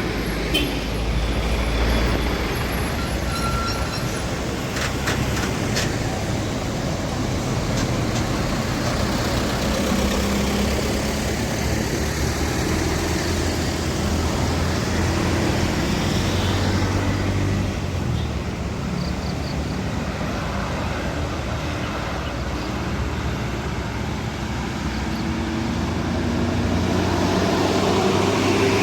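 Road traffic with heavy diesel vehicles passing: a continuous rumble of engines and tyre noise. One engine grows louder near the end as it approaches.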